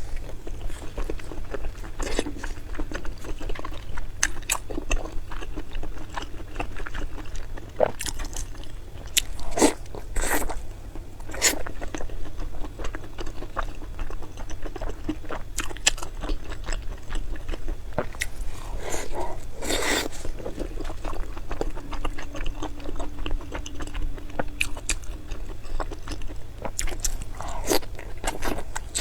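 Close-miked eating: crunchy bites and chewing, with irregular sharp crunches and a few louder bites standing out.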